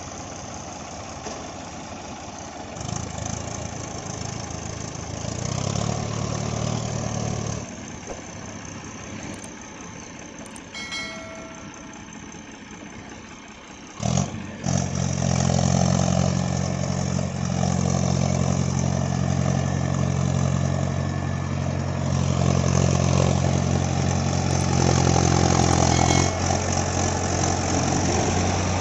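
Tractor diesel engines of a Mahindra Arjun 555 and a New Holland 3600-2 working to free the Mahindra from deep paddy mud: engines running, rising for a few seconds early on. After an abrupt cut about halfway, a louder, steady engine runs close by under load.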